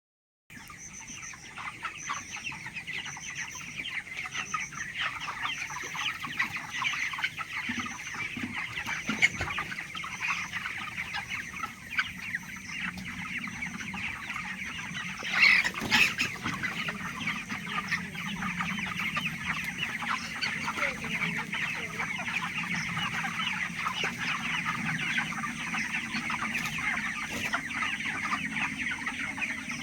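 Dense, continuous clucking and cheeping of a large flock of 26-day-old chickens in a poultry house, many calls overlapping, with one louder burst about halfway through.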